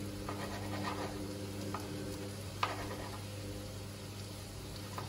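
Kitchen knife cutting carrot pieces on a plastic cutting board: a few slow, irregular taps of the blade against the board over a steady low hum.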